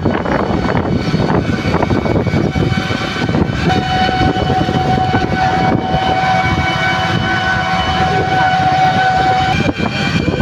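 Wind rushing over the microphone and road noise from a moving vehicle, with a thin steady whine that starts about two and a half seconds in and stops near the end.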